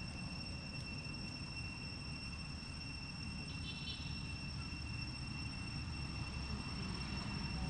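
Steady, high-pitched drone of insects, with a brief patch of quick ticks about halfway through, over a low background rumble.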